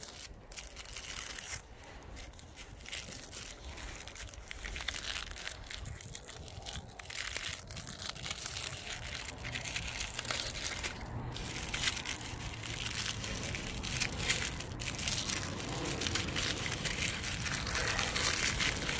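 Red cellophane wrapper of a firecracker pack crinkling as fingers peel and tear it open, a dense run of small crinkles that grows louder toward the end.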